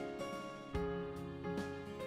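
Instrumental background music, a melody of separate notes, with a new note starting about every second.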